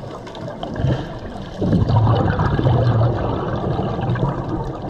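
Water gurgling and splashing, getting louder about a second and a half in.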